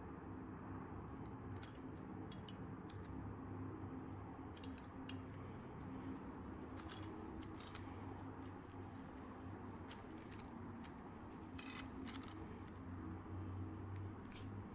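Sharp plastic clicks of a 5x5x5 Rubik's cube's layers being turned, scattered irregularly with a few quick clusters, over a steady low hum.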